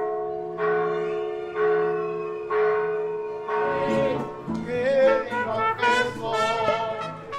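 A church bell tolling about once a second, each stroke ringing on and fading, then mariachi trumpets take over from about three and a half seconds in, playing a melody with vibrato.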